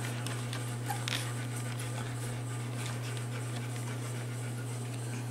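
Faint, soft sounds from golden retriever puppies nursing against their mother, over a steady low hum.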